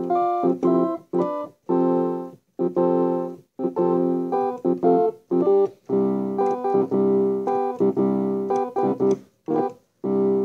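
Background keyboard music: sustained chords played in short phrases, broken by brief silent gaps.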